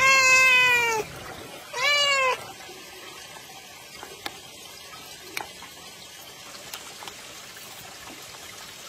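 Orange tabby cat meowing twice, a long meow and then a shorter one about two seconds in. After that, only a low steady hiss with a few faint clicks while the cats eat from a bowl.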